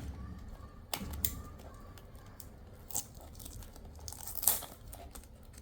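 Packaging of a small model-kit box being handled and opened: a few sharp clicks and crinkles, then a louder tearing rustle about four and a half seconds in.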